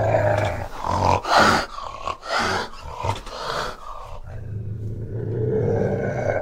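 Fishing cat growling: a low, sustained growl, broken in the middle by several short, louder calls, then a low growl again in the second half.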